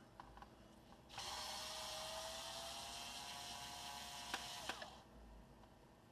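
Small electric screwdriver running for about three and a half seconds, its motor whine rising slightly in pitch as it backs out a laptop back-panel screw, then stopping with a couple of sharp clicks. A few faint clicks come before it.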